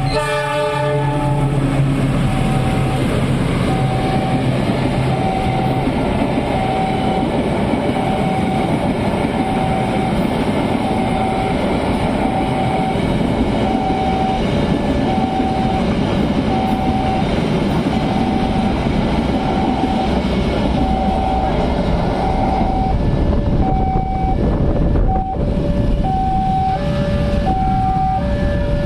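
Railway level-crossing warning alarm sounding a repeating electronic ding about once a second, over the continuous rumble of a train passing through the crossing. A locomotive horn cuts off in the first second.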